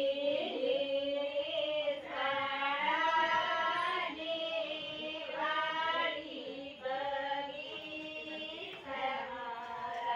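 Women singing a Rathva wedding song (lagna geet) together without instruments, in long held phrases of about two seconds each with short breaks between them.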